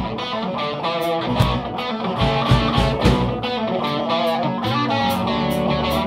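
Hard rock band playing a rehearsal take: an electric guitar riff over bass guitar and drums, with cymbals keeping a steady beat.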